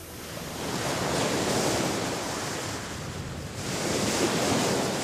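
Ocean surf washing up on a sandy beach, swelling twice as waves come in.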